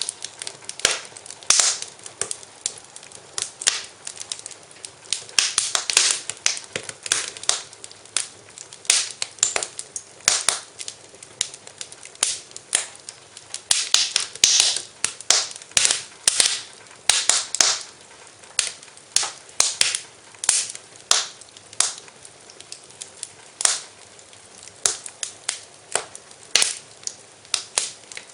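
Wood fire crackling in a fireplace: irregular sharp pops and snaps, several a second, some louder than others, over a faint hiss.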